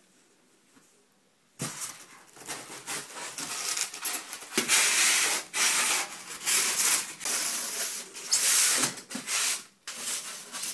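Packaging being handled as a boxed PC case is opened: cardboard and packing material rubbing and scraping in uneven bursts, starting about a second and a half in.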